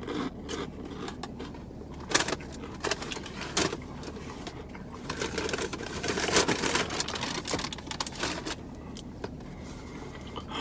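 Handling of a plastic takeout salad container and fork: a few sharp plastic clicks, then a few seconds of crinkling and rustling as the container is moved, over a low steady hum.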